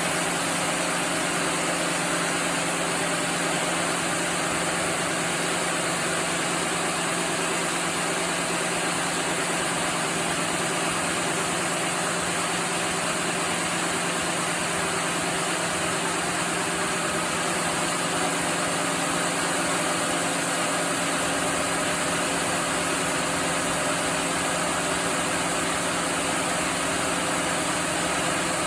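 Sawmill machinery running steadily: a continuous mechanical hum and whir with a low drone, with no starts, stops or cuts into wood.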